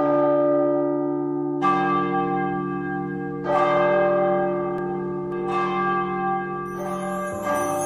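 Church bell tolling: four strokes about two seconds apart, each ringing on under the next. Other instruments come in near the end as the song's introduction starts.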